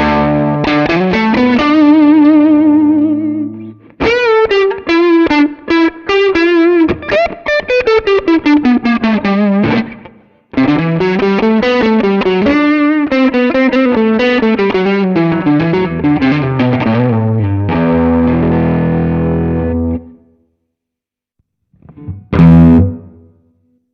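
Fender Stratocaster electric guitar played through a Nux MG300 modelling processor with a distorted amp tone: fast single-note runs climbing and falling, held notes with vibrato, and chords. The playing stops about 20 seconds in, then one short loud chord comes near the end.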